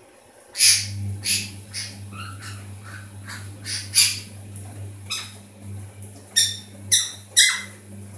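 Pyrrhura conure chattering: a run of about a dozen short squawks and chirps starting about half a second in, with a quick cluster of the loudest calls near the end, over a steady low hum.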